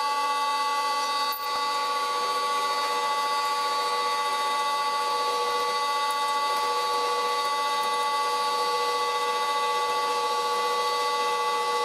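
Old Karger metal lathe running steadily while an 8 mm twist drill in the tailstock chuck bores into the spinning workpiece: a steady machine whine made of several unchanging tones over cutting noise.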